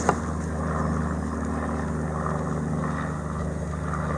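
Propeller airplane engine droning steadily overhead, with a sharp click just at the start.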